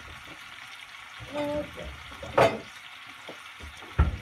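Spare ribs sizzling in a frying pan, a steady hiss, with a sharp clack about two and a half seconds in and a heavy thump near the end.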